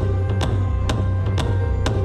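Background music with a steady beat of about two drum hits a second over a deep bass line.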